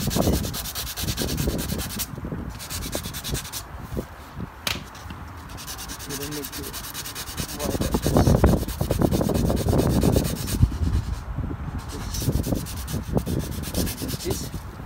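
Hand sanding a small rust spot on a car's painted body panel with sandpaper on a curved pad, in back-and-forth rubbing strokes. The strokes grow louder and busier about eight seconds in.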